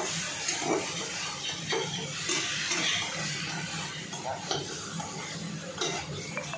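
Metal spatula scraping and clinking against a steel kadai while pieces of mutton and potato are stirred and fried, with a sizzle underneath.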